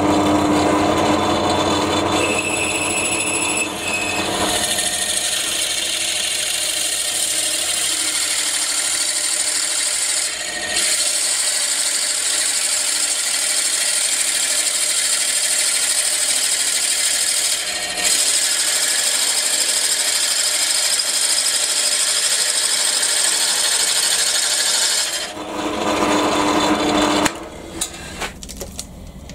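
A pillar drill boring a 25 mm hole into a square wooden blank. The motor runs up, then the bit bites a few seconds in with a steady loud cutting hiss. The cut eases off briefly twice, then the bit spins free near the end and the drill is switched off.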